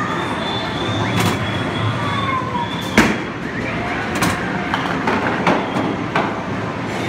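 Mini-bowling ball rolling down the lane and striking the pins, with a run of sharp knocks and clatters, the loudest about three seconds in, over the hubbub of voices in a bowling arcade.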